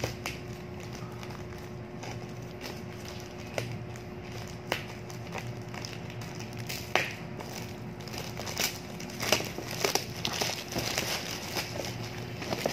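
Plastic courier pouch being picked at, torn and crinkled by hand: scattered single snaps and rips at first, then a denser stretch of crinkling about two-thirds of the way through, over a faint steady hum.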